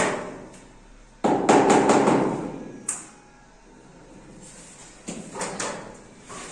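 Knocks and clattering impacts: a sharp knock, then about a second later a louder clatter that rings out for about a second, and a few lighter knocks near the end.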